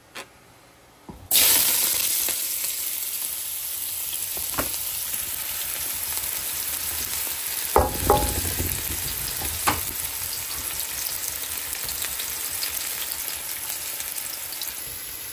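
Sliced onions go into hot oil in a wide steel pan about a second in, setting off a sudden loud sizzle that settles into steady frying. A few short metal knocks against the pan come through the sizzle.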